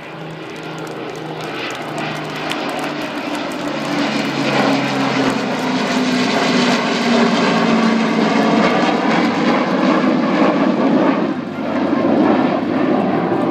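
Low fly-past of an Avro Lancaster bomber with a Tornado GR4 jet: the Lancaster's four Rolls-Royce Merlin piston engines drone in a low hum over a rushing roar that grows steadily louder, the engine pitch dipping slightly as they pass.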